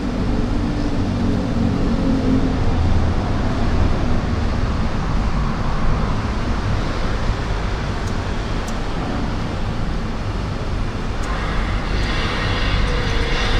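Steady rumble and hiss of a moving vehicle's road noise, with a brighter hiss joining near the end.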